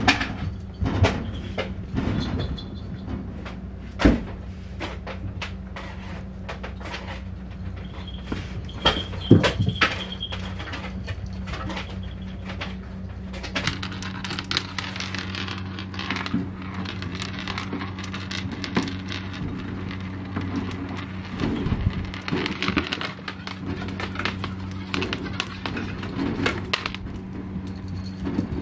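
Wooden sliding door knocking and rattling in its track while cats paw and push it open, with scattered thumps and clicks. The scratching and rattling get denser from about halfway through, under a steady low hum.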